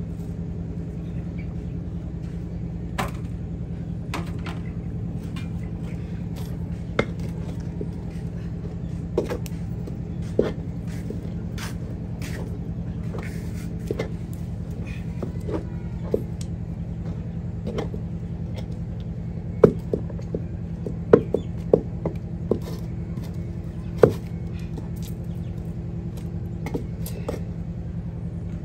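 A wooden stirring stick knocking and scraping against a metal cooking pot over a wood fire: scattered sharp knocks, with a cluster of louder ones about twenty seconds in, over a steady low hum.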